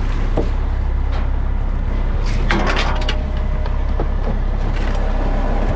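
Steady low drone of a crab fishing boat's engine, with scattered knocks and a short burst of clattering about halfway through from work on deck.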